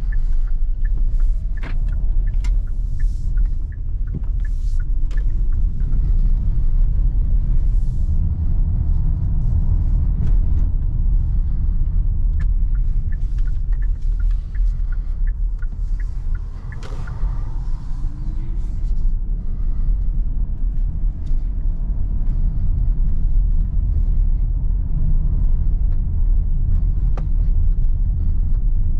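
Cabin noise of a Kia Sorento 1.6 T-GDI hybrid SUV driving over cobblestones: a steady low tyre rumble with frequent small knocks and rattles, and a faint engine note rising now and then.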